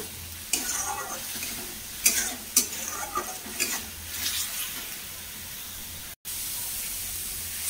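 Tomato purée and spice masala sizzling as they are fried down in a metal kadai, with a steel spatula stirring and scraping the pan; a few sharp scrapes come in the first three seconds. The sound cuts out for an instant a little after six seconds.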